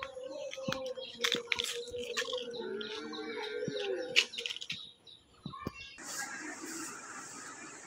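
Birds chirping, with a few sharp clicks among the calls. About six seconds in the sound cuts abruptly to a steady hiss.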